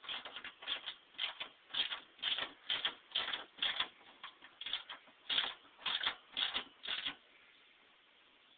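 Hand ratchet clicking in short runs as it is swung back and forth, tightening the bolts that hold a nerf step on; the strokes come about two or three a second and stop about seven seconds in.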